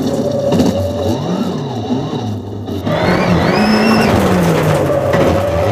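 Ford Fiesta rallycross Supercar's turbocharged four-cylinder engine heard from inside the cockpit, revving up and down as it is driven hard through gear changes, with a brief lift off the throttle about halfway through before it pulls again.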